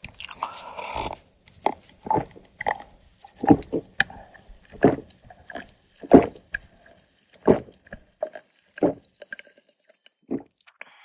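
A person drinking cola from a glass in one long drink, a loud gulping swallow about every second and a half.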